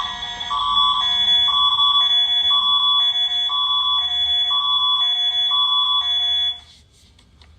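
Canadian Alerting Attention Signal (the Alert Ready / NPAS alert tone): a steady high tone with two lower chords alternating underneath it every half second. It cuts off abruptly about six and a half seconds in.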